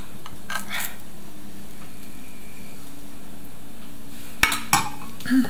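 A metal spatula knocking and scraping against a glass baking dish and a plate as baked pork pieces are lifted out: a couple of clinks about half a second in, then a few more near the end.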